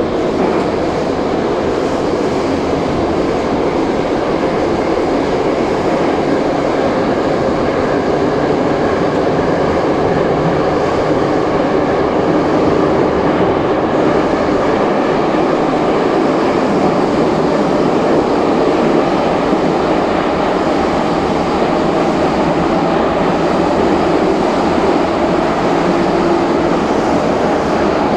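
Metro train car underway, heard from inside the carriage: a steady, loud running noise of wheels and motors on the track, with no break.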